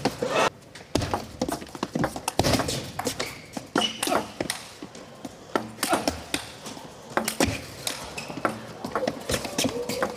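Table tennis rally: the ball is struck by the players' rubber-faced paddles and bounces on the table, giving a run of sharp, irregular knocks traded back and forth.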